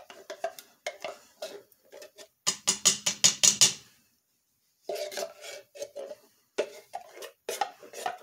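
Wooden spoon scraping and knocking inside a tin can, scooping out thick blueberry pie filling in a series of short strokes. A fast run of scrapes comes about two and a half seconds in, then a second of quiet, then more scraping with a light ring from the can.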